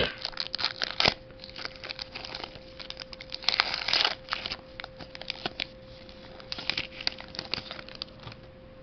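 Foil wrapper of a Pokémon trading card booster pack being torn open and crinkled, in several short crackly bursts: about a second in, around three and a half to four seconds, and again near seven seconds. A faint steady hum runs underneath.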